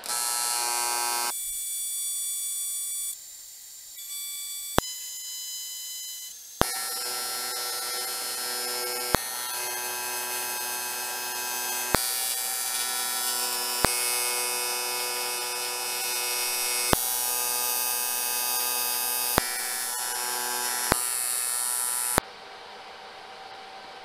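AC TIG welder arc buzzing while tack-welding aluminium box tube. The buzz shifts in level a few times in the first seven seconds, with sharp clicks every two or three seconds, and cuts off about 22 seconds in, leaving the welder's cooling fan running.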